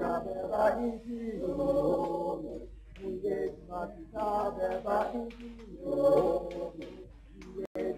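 A choir singing in short phrases, with brief pauses between them.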